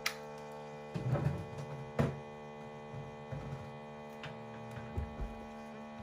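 Single-serve pod coffee maker brewing, its pump running with a steady hum and a few soft knocks about one, two and five seconds in.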